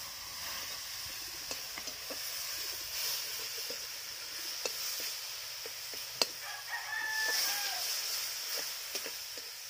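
A metal spatula scraping and clinking against a metal wok as a curry is stirred, in scattered sharp clicks, the loudest about six seconds in, over a steady high hiss. A rooster crows about seven seconds in, a single call of about a second.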